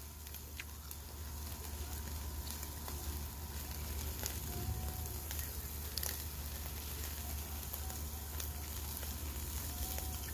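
Steaks sizzling over hot charcoal on a small kettle grill, a steady hiss broken by scattered crackles and pops.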